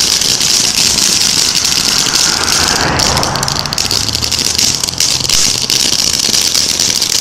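TNT Short Stack fountain firework burning on the ground: a steady hiss with dense crackling as it sprays sparks.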